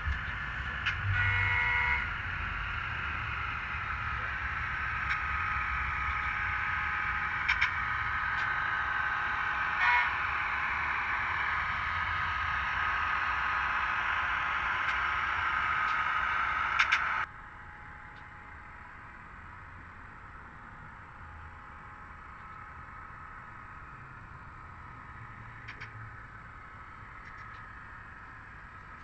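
Sound-equipped HO-scale model diesel locomotives: a short horn blast about a second in, then a steady engine drone with a rumble of rolling wheels and a few sharp clicks. The sound cuts off abruptly about 17 seconds in, leaving a quieter steady rolling rumble.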